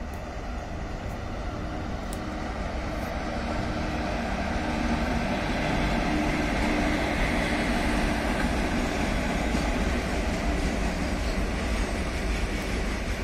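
A pair of WAG5 electric locomotives running past, a steady hum of motors and blowers with wheel-on-rail noise that grows louder over the first five seconds or so, then holds.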